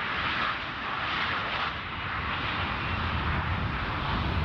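Pratt & Whitney F117 turbofan engines of a Boeing C-17 Globemaster III running on the ground as the aircraft rolls along a dirt strip: a steady jet rush, with a deep rumble that grows stronger in the second half.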